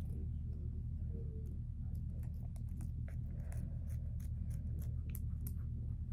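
Small scissors snipping at a stuffed toy's long fabric tag: a run of short, sharp snips and clicks, mostly from about two seconds in, over a steady low hum.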